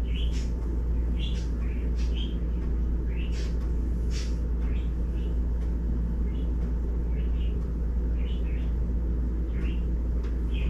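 A dry cleaning wipe rubbed back and forth over a Samsung Galaxy S24 Ultra's glass screen, giving short squeaks and rubbing strokes every half second to a second. A steady low rumble runs underneath.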